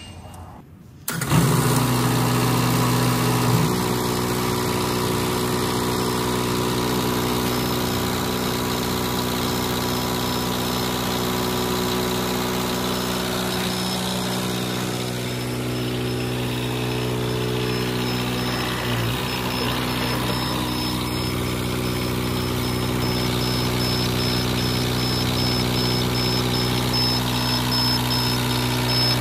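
Engine of a tracked cargo loader, starting abruptly about a second in and then running steadily while its hydraulic scissor deck is raised. Its note shifts slightly a few seconds in and again about two-thirds of the way through.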